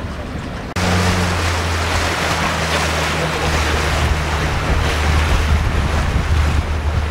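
Boat underway: the engine's steady low hum under loud wind and water rush. The sound jumps suddenly louder less than a second in.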